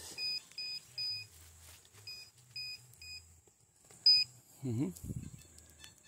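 Metal detector beeping over a buried target: three short high beeps, a pause, three more, then a single louder beep about four seconds in. The target turns out to be a metal bottle cap.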